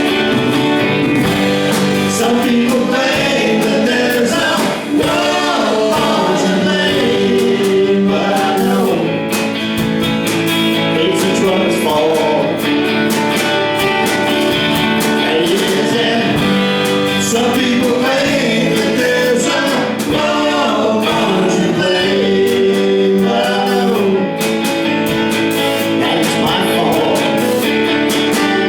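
A live band playing a song, with guitars under several voices singing together.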